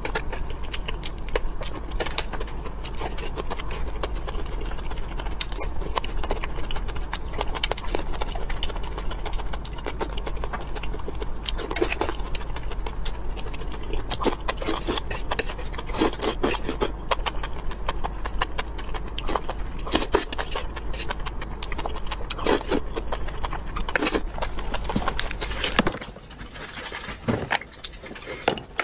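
Close-up eating sounds: wet chewing and slurping of sauced noodles and enoki mushrooms, with utensils clicking and scraping on a metal tray, over a steady low hum. It gets quieter near the end.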